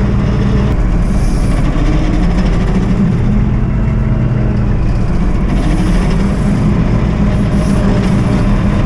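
Combine harvester engine running steadily with a low, even drone.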